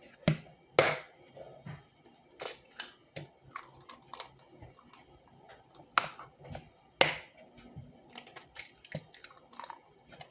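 Eggs being cracked against the edge of a mixing bowl: a series of sharp taps and knocks, loudest about a second in and again at about six and seven seconds, with quicker, lighter clicks of shell near the end.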